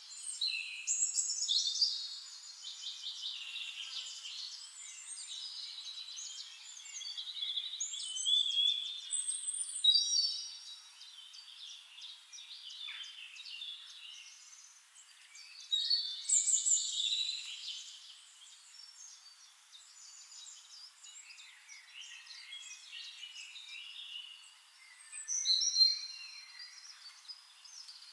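Several forest birds singing and calling at once, overlapping chirps and warbling phrases, with louder songs coming in bursts every few seconds.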